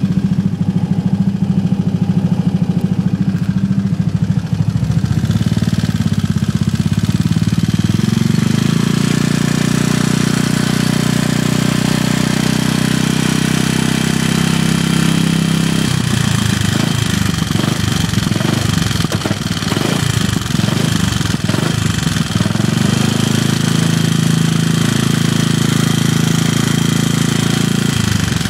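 Honda Foresight 250 scooter's single-cylinder four-stroke engine running with an abnormal noise that the owner cannot identify and tags as tappet noise. It idles, is revved up about five seconds in and held, runs rough and uneven for several seconds past the middle, then steadies before dropping back near the end.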